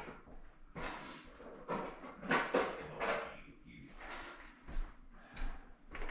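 A tool drawer being opened and tools clattering and knocking inside it: a string of short knocks and rattles while someone searches for a short Phillips screwdriver.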